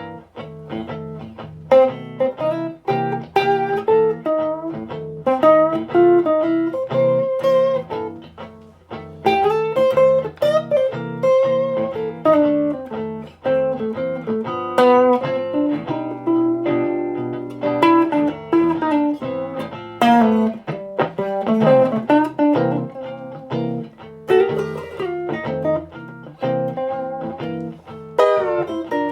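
Electric guitar played through an amplifier and speaker cabinet: melodic single-note lines and chords over a steady lower part.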